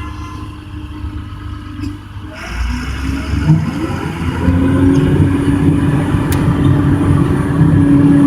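Bulldozer's diesel engine running at idle, then revving up about two and a half seconds in and running louder, with a steady whine joining it.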